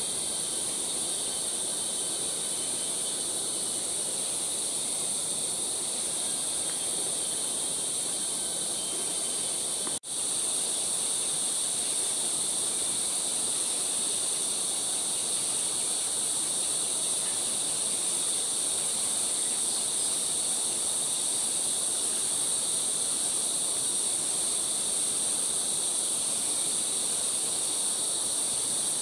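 Steady, high-pitched chorus of rainforest insects, unchanging throughout. The sound cuts out for an instant about ten seconds in.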